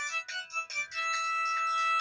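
Polyphonic ringtone melody from the Megafon TDS 12-1 set playing through the small speaker of an Explay SL240 mobile phone: a run of short notes, then a chord held through the second half. Tinny, with no bass.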